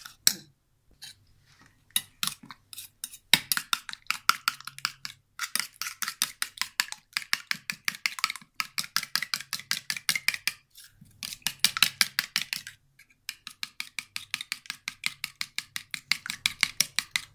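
Steel spoon beating eggs in a stainless steel bowl: quick clinking of metal on metal, several strokes a second, in runs with short breaks.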